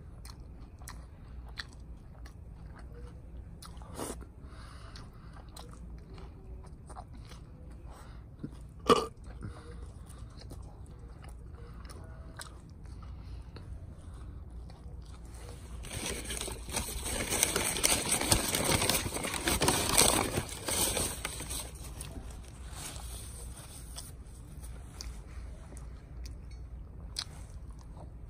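A man chewing a burger with his mouth open, with scattered wet smacking clicks, one sharp click about nine seconds in. Past the middle comes a louder stretch of noise lasting about six seconds.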